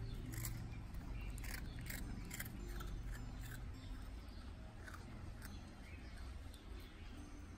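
A puppy crunching a hard biscuit: a quick run of sharp crunches over the first few seconds, then a couple more about five seconds in.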